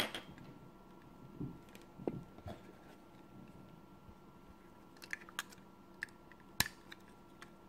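Small plastic-and-metal clicks of 9-volt batteries being handled and their snap terminals clipped together in series: a few scattered sharp clicks, the sharpest at the start and again near the end.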